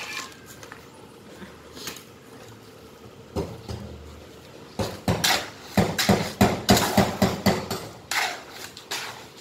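Steel shovel scraping and scooping a cement and gravel mix in a steel wheelbarrow pan while mixing concrete by hand. Fairly quiet at first, then a quick run of scraping strokes, about three a second, in the second half.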